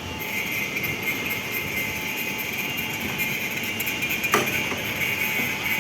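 Electric pipe threading machine running steadily, with a constant high-pitched tone over a noisy hum and one sharp knock about four seconds in.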